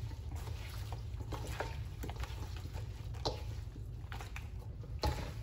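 Cut vegetables being tossed by hand with seasoning in a stainless steel mixing bowl: soft rustling with scattered light clicks of pieces knocking against the metal, over a steady low hum.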